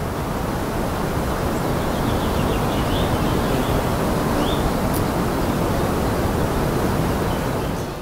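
Steady rushing of falling water, a waterfall sound, which fades out near the end.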